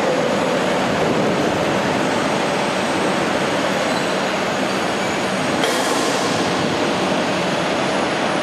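Apple packhouse machinery running steadily, a dense clattering mechanical noise without let-up, with a short high hiss about five and a half seconds in.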